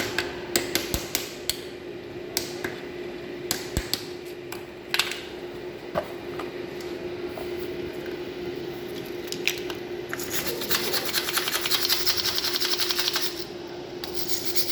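Electric arc welding on aluminium: the arc crackles and snaps in short, irregular strikes, then crackles steadily for about three seconds near the end, over a steady hum.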